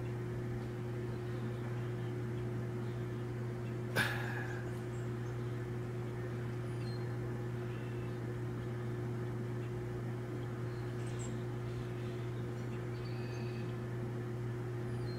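A single sharp BB gun shot about four seconds in, a short crack with a brief ring after it, over a steady low hum; the balloon target does not pop.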